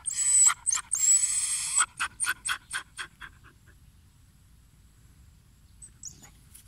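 Dog panting: a loud rush of breath over the first couple of seconds, then quick, even pants, about four a second, that fade out about three and a half seconds in.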